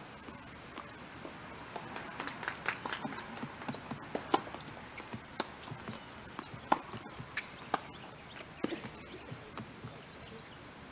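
Irregular sharp taps and clicks of tennis play on a hard court: balls struck and bouncing, with footsteps, over a steady hiss.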